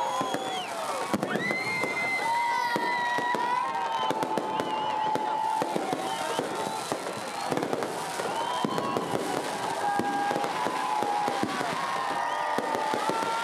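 Fireworks display going off without a break: dense crackling and popping, with many whistling tones held a second or two each.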